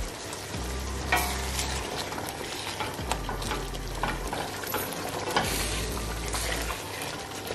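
Wooden spatula stirring chicken curry gravy in a stainless steel pot, with repeated scrapes against the metal, over the sizzle of the simmering gravy as freshly poured coconut milk is mixed in.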